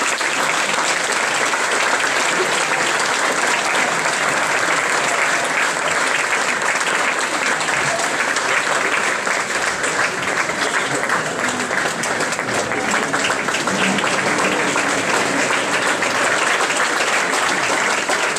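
A roomful of people applauding, many hands clapping in a loud, sustained ovation.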